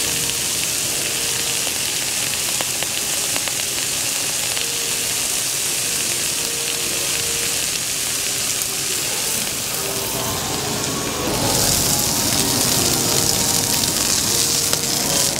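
A slice of A5 wagyu beef sizzling steadily as it sears in a hot pan, growing louder about eleven seconds in.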